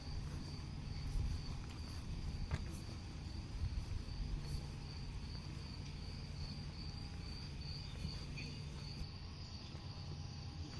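Crickets trilling steadily in one high, even tone, over a low rumble.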